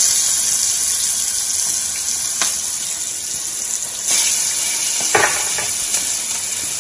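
Battered shrimp frying in a skillet of hot oil: a steady sizzle, with a couple of light knocks about two and five seconds in.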